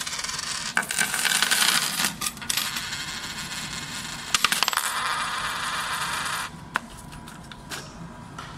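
A bag's worth of loose coins poured and shaken out onto a wooden counter, clinking and rattling against each other. The clatter stops sharply about six and a half seconds in, leaving a few single clinks.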